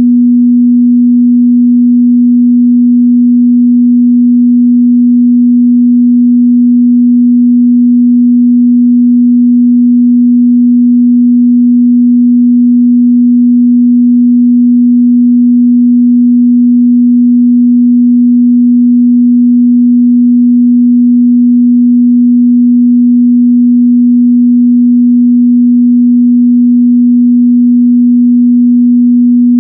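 A steady, loud 243 Hz sine-wave test tone, one pure pitch held without change.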